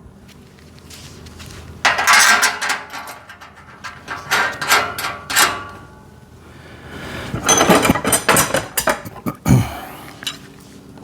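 Metal parts of a parts-storage rack clinking and clattering in three short flurries as the frame uprights and screws are handled and fitted together, with a duller knock near the end.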